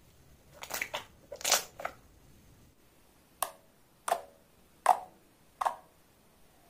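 Clear slime squished and kneaded by hand, a quick run of sticky squelches in the first two seconds, then four separate finger pokes into the flattened slime, each a short squelching pop, about three-quarters of a second apart.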